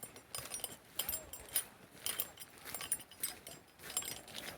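A hiker's footsteps along a trail, about two steps a second.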